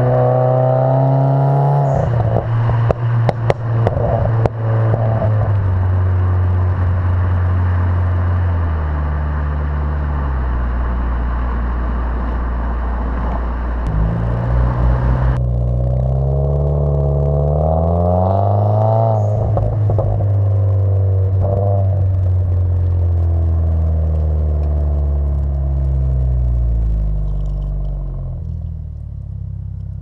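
2016 Subaru WRX's turbocharged 2.0-litre flat-four exhaust while driving, the engine revving up and falling back repeatedly through gear changes. There is a run of sharp crackles a few seconds in, and the sound changes abruptly about halfway through.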